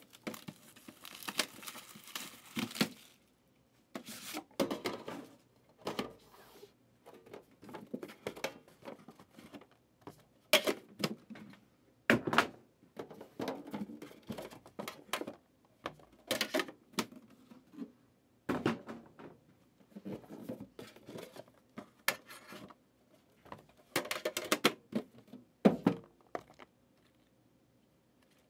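A sealed trading-card hobby box being unwrapped and opened by hand: wrapping crinkles and tears, cardboard and a metal tin are handled, and there are a dozen or so sharp knocks and clacks scattered through it.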